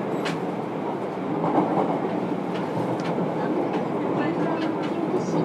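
Inside a JR Kyushu 303 series EMU's motor car, which has Hitachi IGBT VVVF control: steady running noise of the train under way, with a few clicks of the wheels over rail joints.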